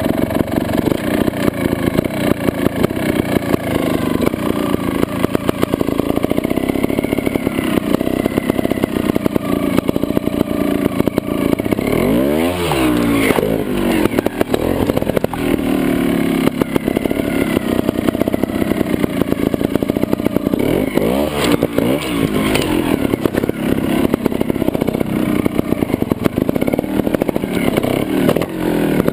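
Trials motorcycle engine running at low revs as the bike picks its way over rocks, its pitch rising and falling sharply twice with quick throttle blips, around the middle and about two-thirds of the way through.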